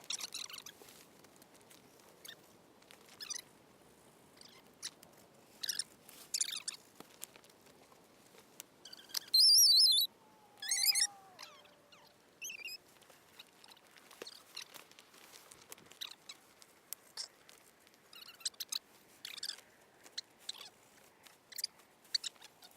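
Birds chirping intermittently, with one loud warbling trill about nine seconds in and another shortly after, amid scattered short clicks and rustles.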